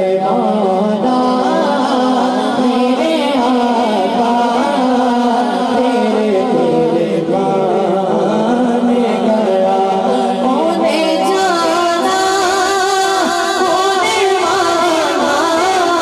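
Naat recitation: a young man singing an Urdu devotional poem into a microphone through a PA, with long, ornamented held notes.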